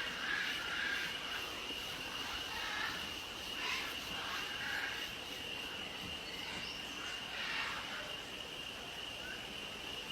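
Outdoor ambience: a steady high insect drone, with birds calling now and then.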